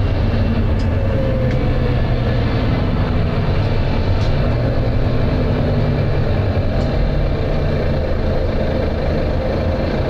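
Volvo B9TL double-decker bus's six-cylinder diesel engine thrashing at road speed, heard from inside the bus as a steady loud drone mixed with road and body noise.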